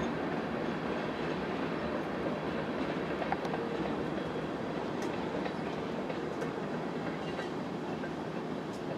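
Canadian Pacific freight train of tank cars rolling past at a distance: a steady rumble of steel wheels on rail, with occasional faint clicks as wheels cross rail joints.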